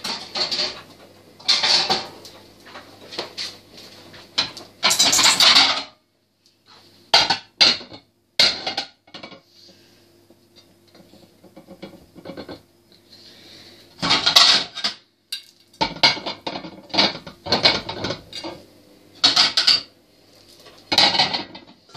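Plates and cutlery clattering and clinking in repeated bursts as they are handled during washing up.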